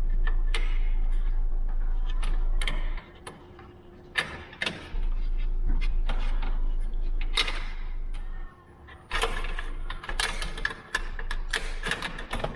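Hand tools working the screws out of a metal flush bolt set into an aluminium door: a run of irregular small metallic clicks, taps and scrapes, loudest around the middle and near the end.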